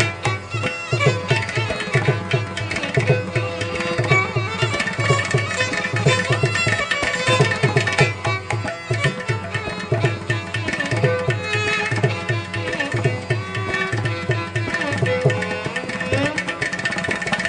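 Background Indian instrumental music: steady hand-drum strokes under a plucked string melody with bending notes.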